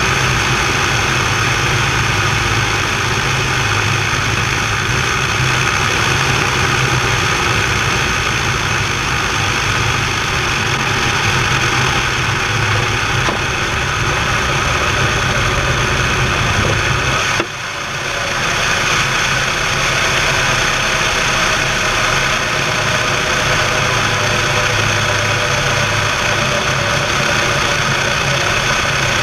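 Light propeller aircraft's engine with rushing airflow, a steady drone heard from a camera mounted outside under the wing during landing and rollout. About two-thirds through there is a short click and the sound drops suddenly, then builds back up.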